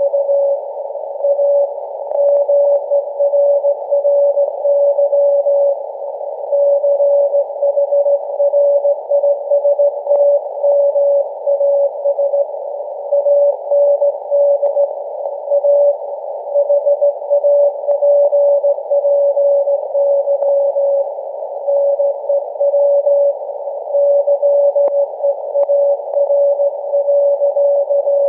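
Morse code from SAQ Grimeton's 1924 Alexanderson alternator, on its 17.2 kHz VLF transmission, received on an RSP1A software-defined radio. It is heard as a single beep keyed on and off in dots and dashes over a hiss of static, spelling out the annual Christmas message.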